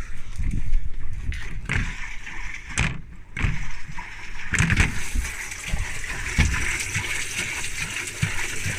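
Whirlpool Zen washing machine running with its door open, water spraying and splashing out of the drum. Irregular low thumps and knocks come first, then a steady spray hiss sets in about four and a half seconds in.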